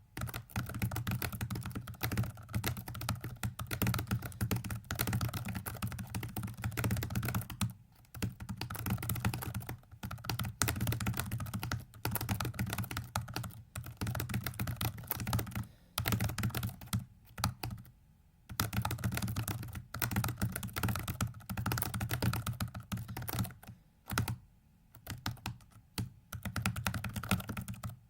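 Computer keyboard struck in rapid runs of keystrokes, each run a few seconds long with short pauses between them: the key presses that turn a virtual 4x4x4x4 puzzle during a speedsolve.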